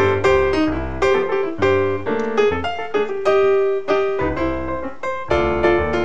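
Background piano music: a lively tune with notes and chords struck several times a second.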